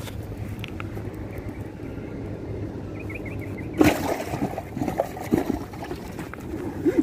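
Water splashing from wet hands over an open fish-carrier bag: one loud splash about four seconds in, then a few smaller splashes and handling rustles, over a steady rush of wind on the microphone.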